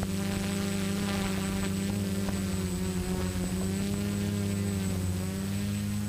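HK SK450 quadcopter's electric motors and propellers droning steadily in flight, heard from the camera carried on the craft.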